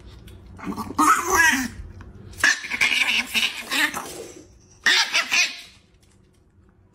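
A person laughing in three short bursts, the first about a second in and the last near five seconds.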